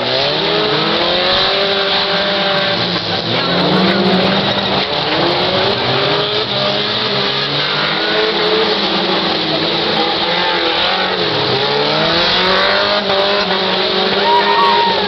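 Several stock cars racing on a dirt track, their engines overlapping and revving up and down as they accelerate and ease off through the bends.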